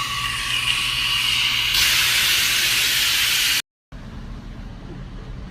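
Compressed-air spray gun hissing steadily as it sprays bedliner, growing louder about two seconds in. It cuts off abruptly, and after a short gap a quieter low rumble follows.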